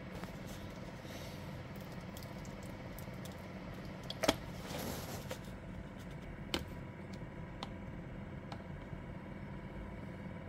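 Kitchen handling sounds over a steady low hum: a sharp click about four seconds in followed by a brief rustle, then a few lighter clicks and taps against a plastic food container as a spoon is put in to stir yogurt and cucumber.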